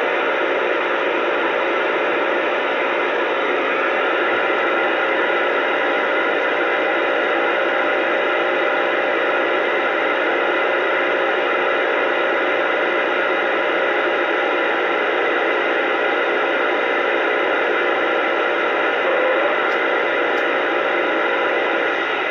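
CB radio receiving an open AM channel (27.285 MHz, channel 28): a steady, loud hiss of static with a few faint steady whistle tones running through it.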